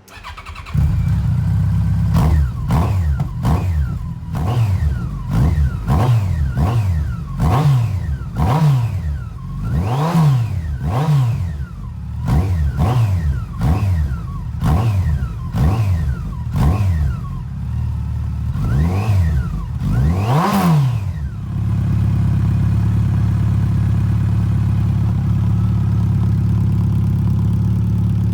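Yamaha FJR1300's inline-four engine running through Delkevic oval slip-on silencers with the baffles removed. It is blipped up in quick rev after rev, about one every 0.7 seconds, for some twenty seconds, then settles to a steady idle.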